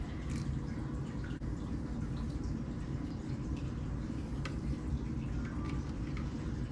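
Water dripping and lightly splashing as a hand scoops fish out of an acclimation bucket and lets them into a reef aquarium, as scattered small drips over a steady low background rush.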